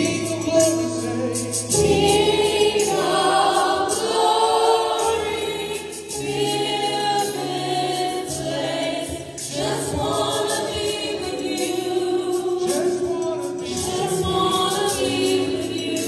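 Gospel group of women singing in harmony, sustaining long notes over held low accompaniment notes.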